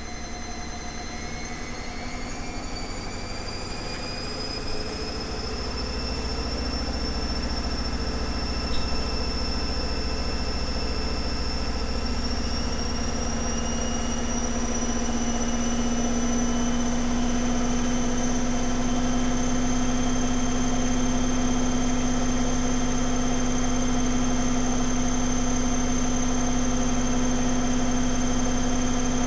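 Zanussi Flexi Dose ZWG7160P washing machine speeding up into its spin, its motor whine rising in pitch and then settling into a steady spin with a growing low hum. The spin is held to about 1000 rpm because the load is unbalanced.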